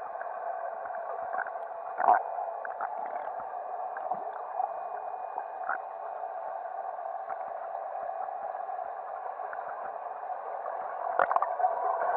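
Muffled underwater sound of a swimming pool, a steady hiss with scattered small bubble clicks. Louder bursts of gurgling come about two seconds in and near the end, where the swimmer is blowing bubbles.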